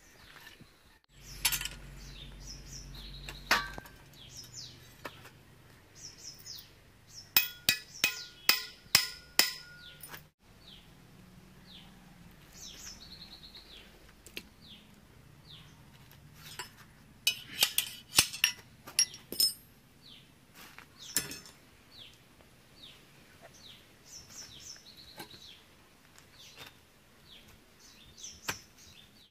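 Steel tools and motorcycle front-fork parts clinking and knocking against each other while the fork is taken apart by hand, in two runs of quick clicks, about three a second. Short, falling bird chirps come and go between them.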